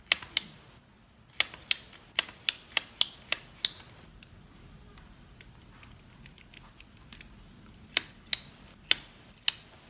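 A string of sharp clicks and taps from handling the bared plastic-and-metal mechanism of a walking toy dog: about ten in the first four seconds, then four more near the end. No motor runs; the toy still doesn't work after its severed wire was reconnected.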